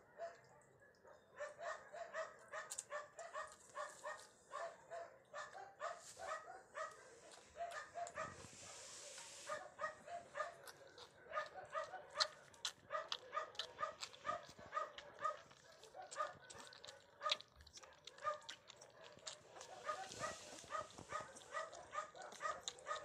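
Young puppies squeaking and whining in short, rapid, high-pitched calls, several a second without pause, with scattered sharp clicks among them.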